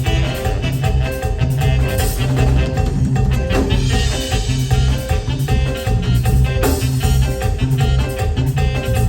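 Live band playing upbeat Latin dance music through its sound system, with a steady pulsing bass line under the instruments.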